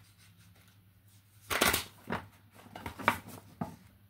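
A deck of cards being shuffled by hand, in four short bursts. The longest and loudest comes about a second and a half in.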